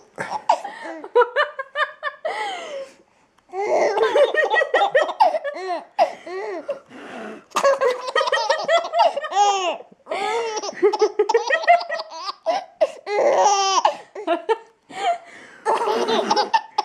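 A baby laughing hard while being tickled on the tummy: repeated fits of high belly laughter and giggles, broken by short pauses, one about three seconds in.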